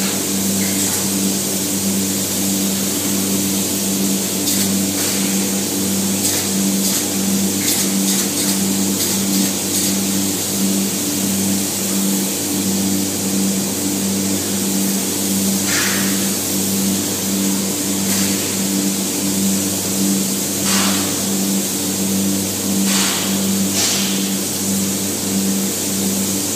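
Spray-foam insulation rig running: a steady machine hum under a constant high hiss, with a few short louder hisses in the second half as polyurethane foam is sprayed.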